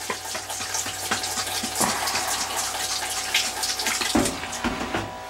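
Pink antifreeze pouring from a jug into the perforated basket of a top-loading washing machine, a steady splashing pour, with a couple of low bumps near the end.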